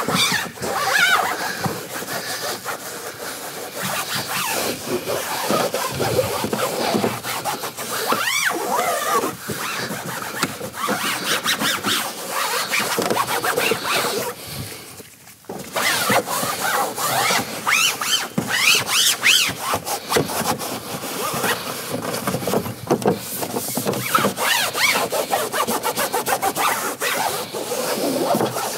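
Microfibre cloth rubbing over a foam-covered textured plastic door trim panel, wiping off active-foam cleaner: continuous scrubbing with many short squeaks, and a brief pause about halfway through.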